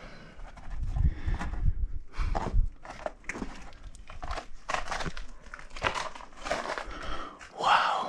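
Irregular scrapes, scuffs and crunches of someone scrambling up rock, with rustling and handling close to the microphone.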